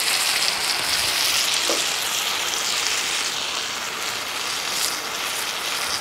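Chopped spinach and onions sizzling in a large aluminium pot as a metal spoon stirs them: a steady frying hiss.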